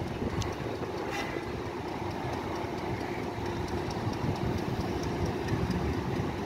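Hitachi diesel-electric locomotive of a departing passenger train running at a distance as it pulls slowly out, a steady low rumble with a steady hum.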